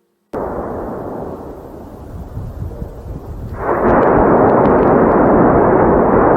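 A loud, continuous rumbling roar that starts suddenly and grows louder about three and a half seconds in.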